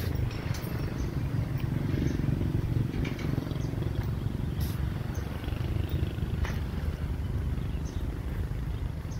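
A steady low rumble, with a few scattered soft clicks and rustles from deer grazing on a heap of cut grass close by.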